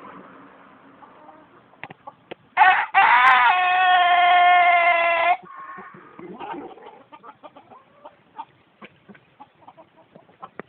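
A Japanese long-crowing rooster crows once, a short opening note and then one long held note of nearly three seconds that stops abruptly. Faint scattered clucks and clicks follow.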